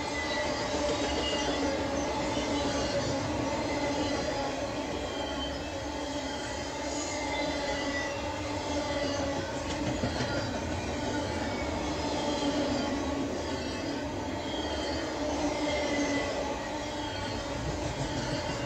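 Double-stack intermodal well cars rolling past, with a steady rumble of steel wheels on the rails and several steady ringing tones over it.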